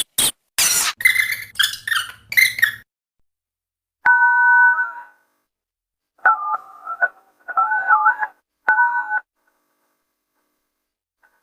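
A quick run of clicks and rattling noise, then electronic paired-tone beeps: one held tone about four seconds in, then a few shorter tones that step up and down in pitch.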